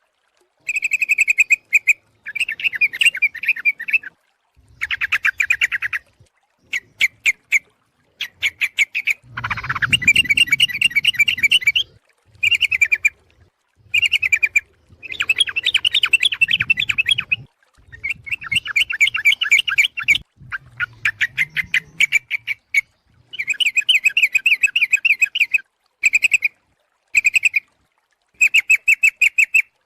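Yellow-vented bulbul (trucuk) calling: bursts of rapid, bubbly chattering notes, one to two seconds each, repeated with short abrupt gaps.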